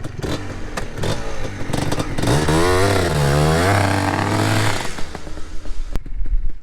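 Yamaha Blaster ATV's two-stroke single-cylinder engine running as it is ridden, revving up and down for a few seconds in the middle before the sound drops away abruptly near the end.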